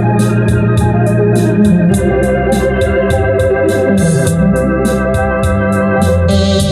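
Organ playing sustained chords over a moving bass line, with a rhythm accompaniment ticking about three to four times a second. A brighter voice joins in the upper range near the end.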